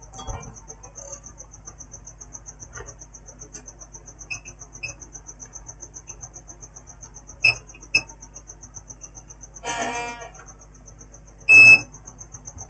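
Multimeter giving short sharp beeps, several times and loudest near the end, as its probes test components on a laptop motherboard in diode mode. A steady high chirping at about four a second runs under it.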